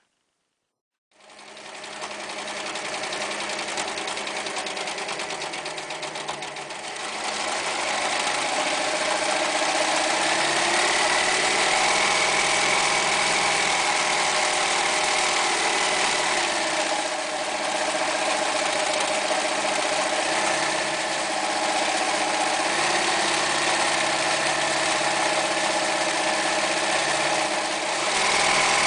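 Toyota SL3304 overlocker sewing machine running. It starts about a second in, gets louder about seven seconds in, then runs steadily with a mechanical whine.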